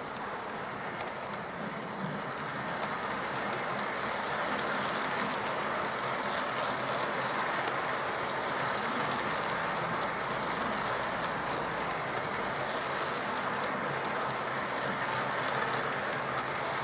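OO-gauge model train, a small tank locomotive hauling twelve coaches, running steadily round the layout: the even clatter of the wheels on the track as the coaches pass close by. It pulls the load cleanly round without struggling.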